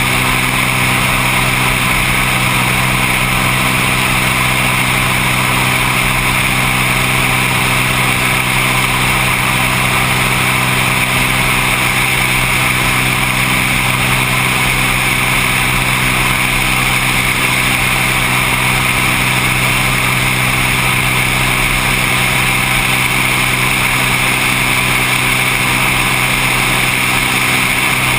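Seaplane's piston engine and propeller droning at a steady, unchanging pitch and level.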